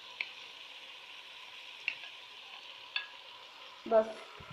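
Meat and onions sizzling steadily in hot ghee and oil in a pot, with three short sharp clicks.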